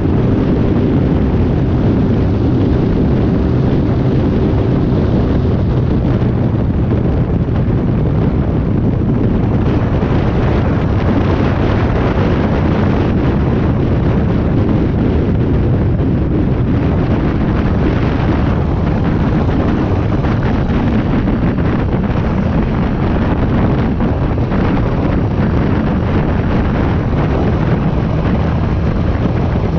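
Motorcycle riding at road speed: steady wind rush on the microphone over the engine's running, with a faint steady engine hum plainest in the first few seconds.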